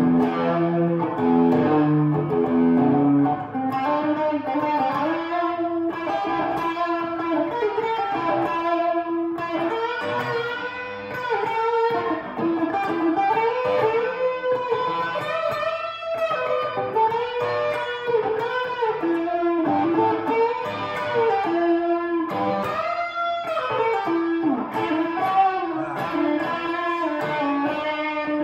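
Semi-hollow electric guitar played through a Two-Rock Bloomfield Drive tube amp with its overdrive switched on. A few heavy low notes open it, and after about three seconds a lead line follows with many string bends.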